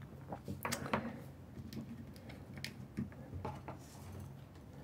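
Light, irregular clicks and taps of hands handling cord and small objects on a work surface.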